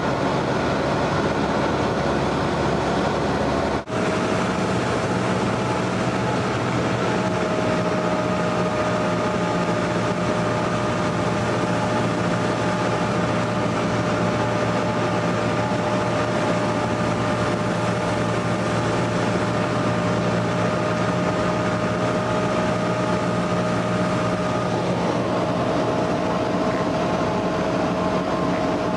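Cessna 172N Skyhawk's four-cylinder Lycoming engine and propeller droning steadily in flight, heard from inside the cabin, with a couple of steady tones over the noise. The sound breaks off briefly about four seconds in.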